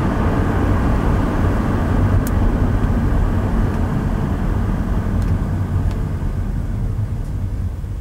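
Car cabin noise while driving: a steady low engine and tyre rumble, easing off a little near the end, with a few faint ticks.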